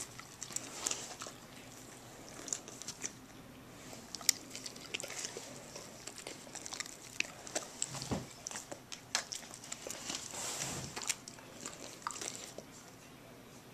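Dogs licking and chewing string cheese taken from fingers close to the microphone: irregular wet mouth smacks and clicks, the sharpest about four seconds in.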